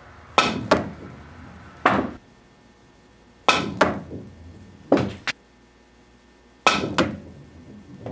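Three pool shots, each a pair of sharp clicks from a cue with a hard Kamui Black leather tip striking the cue ball, followed a second or so later by another knock as the ball reaches the cushion.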